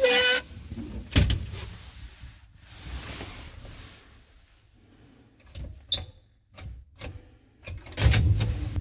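A short squeal at the start, then a knock about a second in and scattered clicks and knocks as a gloved hand handles the knurled knobs on a metal panel. About eight seconds in, a loud low rumble sets in and keeps going.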